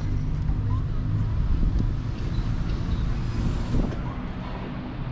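Street traffic, with a vehicle engine running steadily close by.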